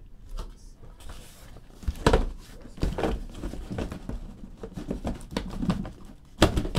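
Cardboard shipping case being turned over and lifted off the sealed boxes it holds: cardboard rubbing and scraping, with several dull knocks, the loudest near the end.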